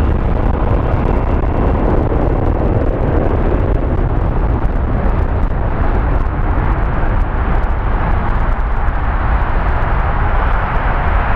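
Loud, steady wind rumble buffeting a helmet-mounted camera's microphone, with a rushing noise that grows stronger near the end.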